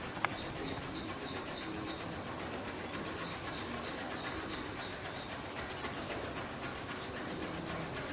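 Morning birdsong ambience: a bird repeats a short high note a few times a second in runs, with lower calls now and then, over a steady background hiss.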